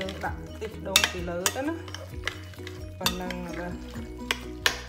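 A hand squishing and turning catfish pieces in wet curry paste in a glass bowl, with irregular wet slaps and clicks, the loudest about a second in and near the end. Background music with held notes and a steady bass plays underneath.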